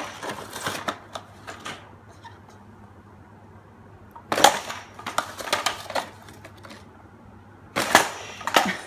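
Plastic clatter and cardboard crunching as a large toy monster truck is pushed down onto a cardboard Happy Meal box on a tile floor. The clatter comes in three bouts, at the start, about four seconds in and near the end, with quieter stretches between.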